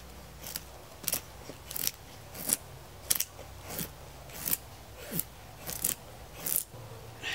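A knife blade scraping along wood in about ten regular strokes, roughly three every two seconds, as he shaves kindling.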